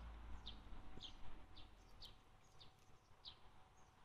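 A small bird calling over and over, a short high downward chirp about every half second. It is faint, over a low rumble that eases after the first second.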